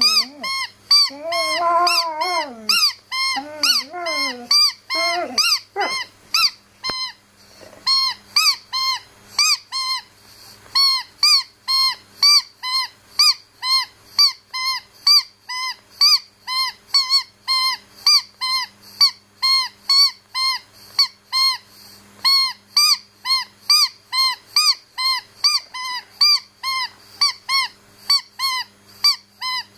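A squeaky dog toy squeaked over and over, about three sharp rising-and-falling squeaks a second. In the first six seconds a dog also whines.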